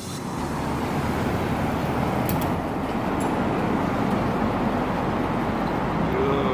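Steady road-vehicle running noise heard from inside a moving vehicle: an even rumble and hiss with no distinct events.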